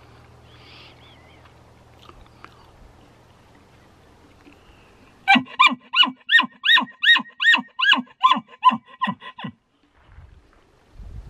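Elk calls made with a mouth reed blown into a Nalgene bottle used as a makeshift bugle tube: a rapid run of about fourteen chuckle-like calls, each rising then falling in pitch, about three a second and trailing off. It starts about five seconds in and lasts about four seconds.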